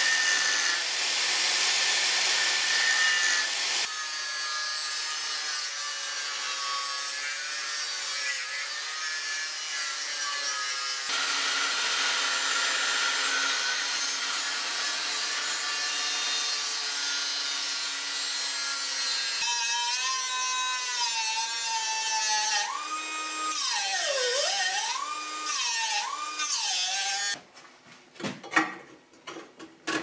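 DeWalt angle grinder with a thin cutoff wheel cutting through steel, a loud grinding hiss over a motor whine that wavers and dips in pitch as the wheel is pushed into the cut. It shuts off suddenly near the end, followed by a few sharp clicks and knocks.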